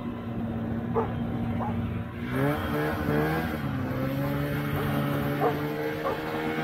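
Freshly rebuilt Polaris TX340 two-stroke twin snowmobile engine running under way, heard from the seat; about two seconds in its pitch dips and then climbs and holds steady higher. A few short sharp sounds stand out over it.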